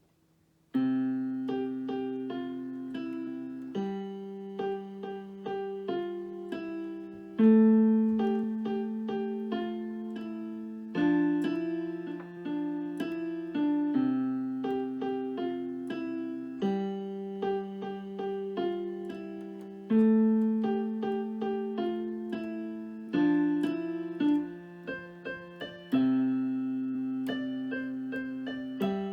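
Solo piano piece starting about a second in: low chords held for about three seconds each under a simple melody of shorter notes.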